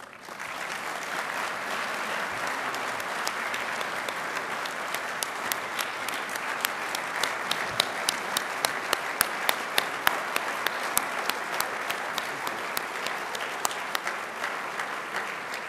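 A large audience applauding steadily, the clapping starting suddenly as the speech ends. From about five seconds in, one close clapper's sharper claps stand out at roughly three a second.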